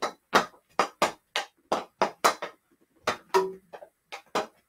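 Hockey stick blade knocking an orange stickhandling ball back and forth during a stickhandling drill: quick sharp clicks, about four a second, with a short break midway.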